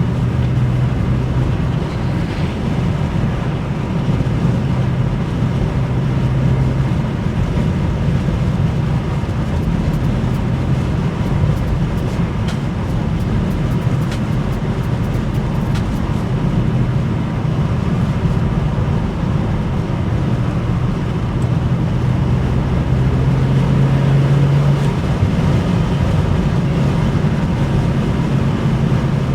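BMW 335i coupe driving, heard from inside the cabin: a steady low engine drone over tyre and road noise, growing a little louder about three-quarters of the way through.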